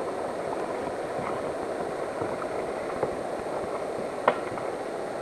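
Steady, dull rush of river water, with light knocks scattered through it and one sharper knock a little after four seconds in.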